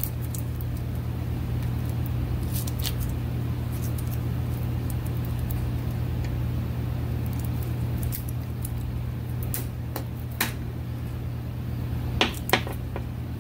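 A steady low hum, with a few light clicks and knocks as a metal carburetor base, its passages packed with sealant, is turned over in gloved hands.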